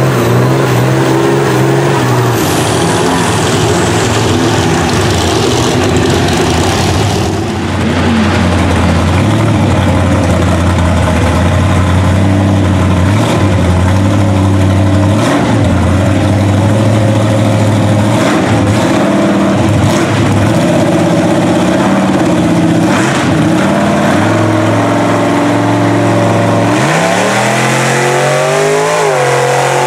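Lifted mud truck engines running hard through water and mud, revs held high with small swings, then a sharp rev up and back down near the end.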